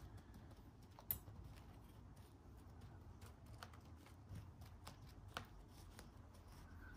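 Faint rustle and scattered light clicks of hands pressing potting mix down into a plastic seedling cell tray, with one sharper click about a second in.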